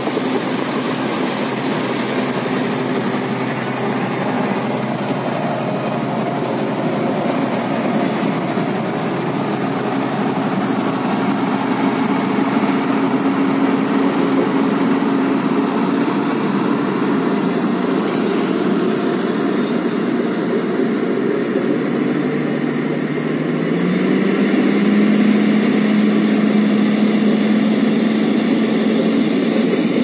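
Diesel engine of a motor grader running steadily as it levels a crushed-stone road base. About three quarters through, an engine note steps up in pitch and gets louder.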